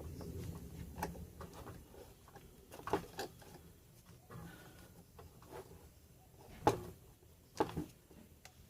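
Scattered clicks and knocks of a brake caliper piston tool being worked to push a rear caliper piston back, a few sharp knocks about three seconds in and again near the end over a faint low hum.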